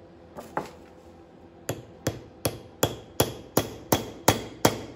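Hammer striking a long steel punch set into a cast-iron vise body. Two light taps come first, then a steady run of ringing metallic strikes, a little under three a second, growing slightly louder.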